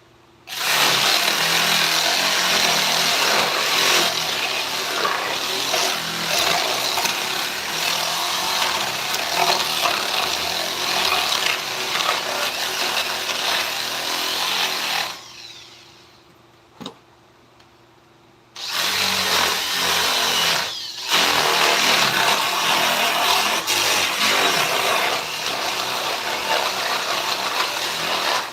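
A handheld power tool cutting and grinding into wood, running in long stretches. It stops for a few seconds about halfway through, starts again, and drops out briefly once more soon after.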